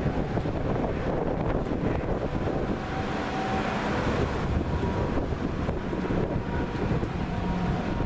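Wind buffeting the microphone, a dense, unbroken rumble.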